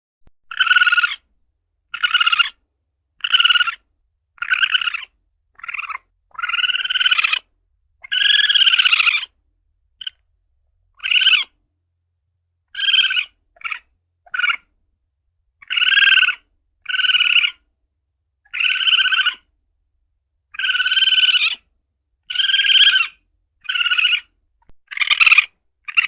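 Asian palm civet (luwak) calling over and over: harsh, buzzy cries, some short and clipped, others drawn out to over a second, coming about once a second with silent gaps between them.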